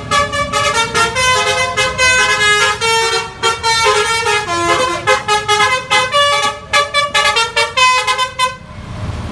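Bus's Basuri 'telolet' multi-tone horn playing a fast, tune-like run of changing notes, cutting off near the end. A low vehicle rumble runs underneath.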